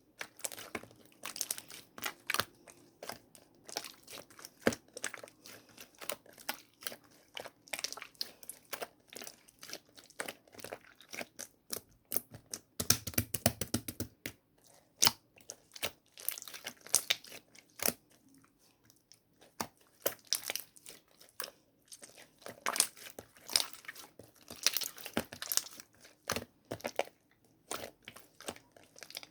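Slime covered in crunchy toppings being squeezed and poked by hand, giving irregular crackles, pops and clicks, with a dense run of crackling about thirteen seconds in.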